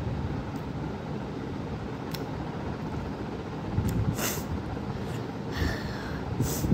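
A child's sharp, hissing breaths through an open mouth, about four seconds in and again near the end, from a mouth burning after very spicy noodles, over a steady low background rumble.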